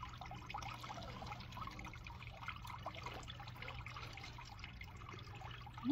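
Faint trickling water with small bubbling gurgles, from water running through gold concentrates during a cleanup.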